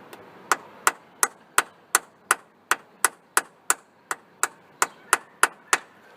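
A hammer tapping on metal: sixteen sharp strikes about three a second, each with a short metallic ring.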